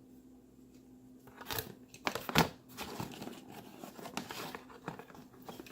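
Handling noise of packaging and a plug-in charger: irregular crinkling and rustling with sharp clicks, beginning after about a second of quiet, the loudest click about two and a half seconds in.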